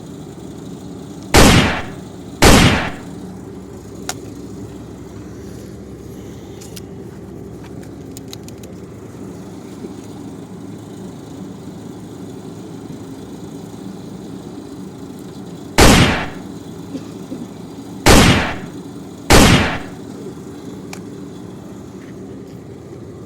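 Five loud, sharp toy-gun shots, two close together near the start and three within a few seconds later on, each with a short ringing tail, over a steady mechanical hum.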